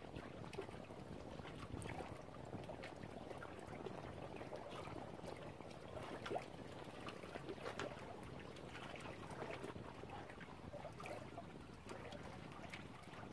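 Lake water lapping gently: a faint steady trickling sprinkled with many small splashes.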